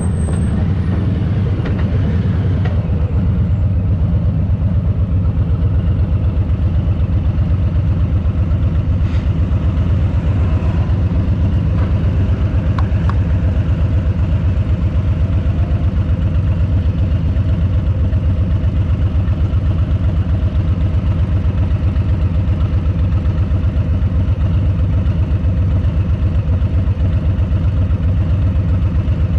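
Harley-Davidson Low Rider S's Milwaukee-Eight 117 V-twin idling steadily, its exhaust pulsing evenly at a constant low beat.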